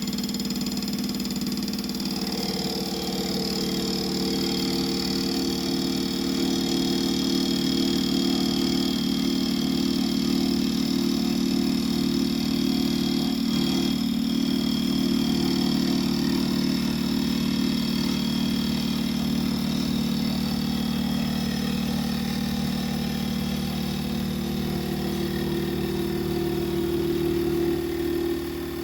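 Mini lathe running steadily while turning down a metal boring bar holder: a steady motor and gear hum with a high whine above it. It drops in level right at the end.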